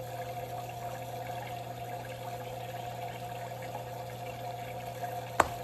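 Submersible water pump running steadily in the bucket reservoir of a hydroponic tower, a low hum under the sound of water running through the tower. A single sharp click about five seconds in.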